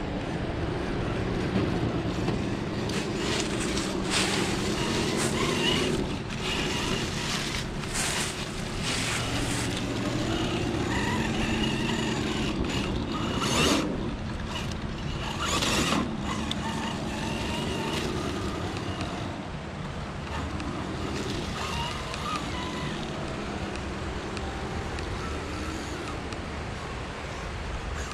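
Brushless motor and drivetrain of an Axial SCX10 III 1/10-scale RC rock crawler whining, its pitch rising and falling as the throttle changes. Several sharp knocks break in, the loudest about two-thirds of the way through.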